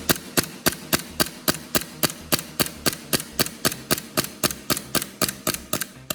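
KSC Glock gas blowback airsoft pistol dry-firing on gas with a newly fitted piston rubber, its slide cycling in a fast, even string of sharp clacks about four a second. The string stops near the end.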